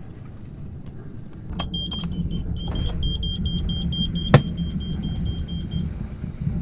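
A Beta Marine diesel engine panel's warning buzzer beeps rapidly and steadily as the ignition key is worked, over the low rumble of the boat's diesel engine. There is one sharp click a little past halfway, and the beeping stops near the end.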